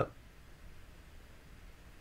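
Near silence: faint room tone in a pause between speech, with no distinct sound.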